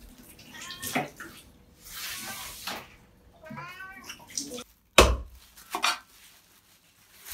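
Young domestic cat meowing twice, short calls that bend up and down in pitch. Around five seconds in come a sharp knock and a second, lighter knock.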